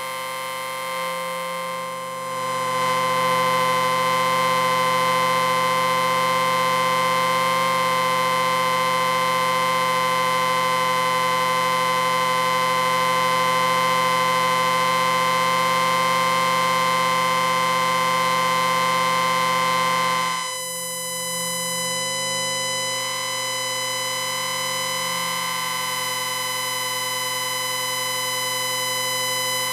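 Synthesized sci-fi electric ringing tone: a steady buzzing drone of many stacked pitches. It swells louder about two seconds in, then drops back and thins out about twenty seconds in.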